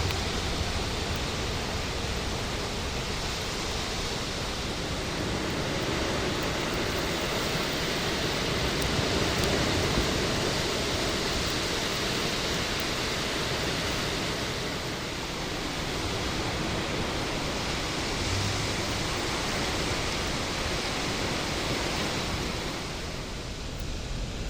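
Bonfire burning, a steady rushing noise of flames.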